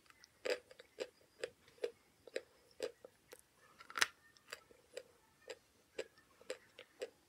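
Chalk being chewed: a steady series of short, dry crunches about two a second, with a louder crunch about four seconds in.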